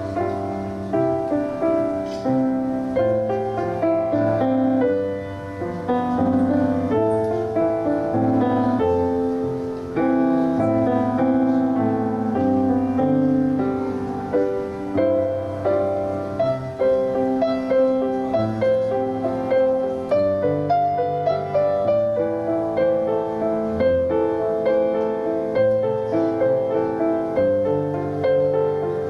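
Piano playing a slow, flowing piece, with many overlapping notes and chords.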